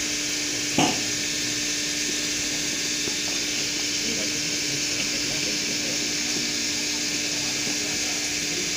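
CNC milling machine cutting a workpiece clamped in a vise, with coolant spraying onto the end mill: a steady hum over a steady hiss. A brief knock sounds about a second in.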